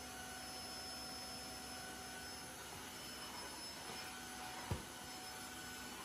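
Tineco Floor One S3 cordless wet-dry vacuum running steadily in auto mode while mopping a tiled floor: an even rushing hum with a faint high whine. A single short knock about three-quarters of the way in.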